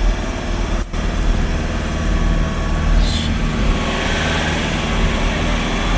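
Car engine running steadily under load with a low hum, with a brief break in the sound about a second in.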